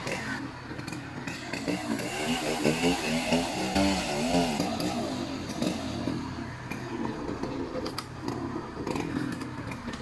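Two-stroke chainsaw running and cutting into a rubber tree, its engine pitch rising and falling repeatedly as the load changes.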